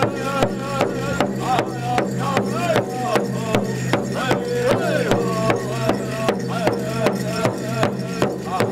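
Powwow drum beaten in a steady, even beat of about two and a half strokes a second, with a group of singers chanting over it.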